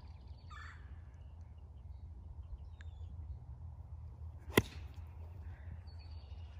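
A golf club strikes a golf ball once: a single sharp crack about four and a half seconds in, over a low outdoor rumble.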